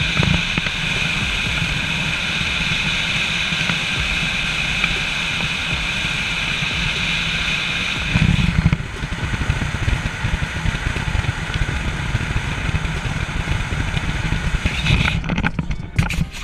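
Car being driven, with a steady hum of road and engine noise heard from inside the cabin.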